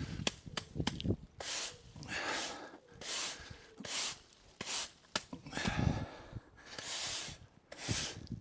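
Broom sweeping hedge clippings across a tarmac driveway: a string of short scraping strokes about once a second, with a few sharp clicks.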